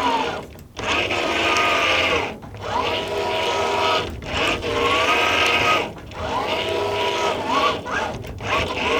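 Minn Kota Ultrex Quest brushless steering motor turning the trolling motor back and forth under foot-pedal control. It whines in about five runs of a second and a half to two seconds, the pitch rising as it spins up and falling as it stops. It has a deep, bassy tone.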